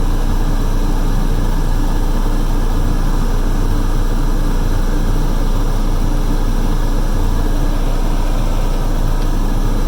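Cat 307 excavator's diesel engine idling steadily, heard from inside the cab, with the cab's air blower running.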